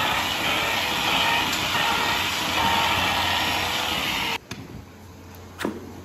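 Steady machine whirr with a low hum from a handheld rotary teat-cleaning brush and the milking parlour's equipment. It cuts off suddenly about four seconds in, leaving quiet barn sound with a single short knock near the end.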